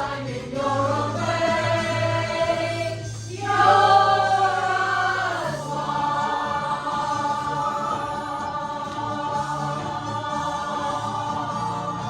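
A choir of voices singing long held chords that change every few seconds, swelling loudest about four seconds in.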